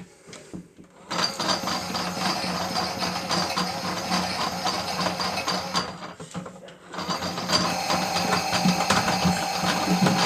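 Toy Miele W1 washing machine's small electric motor running its final spin with a steady hum, stopping for about a second near the middle, then starting again with a steady whine.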